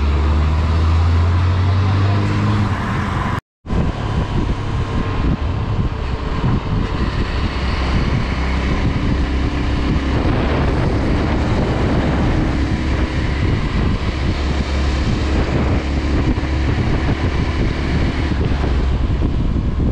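Honda Twister 250 single-cylinder motorcycle engine running on the move, with wind rushing over the microphone. A steady low engine note for the first few seconds is broken by a brief dropout about three and a half seconds in. After it, the engine rumble continues under heavier wind noise.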